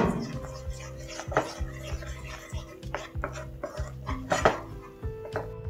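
Wooden spatula stirring a thick sauce in a nonstick frying pan, scraping and knocking against the pan, with a louder stroke about every one and a half seconds, as egg yolks are mixed into the butter, flour and milk sauce.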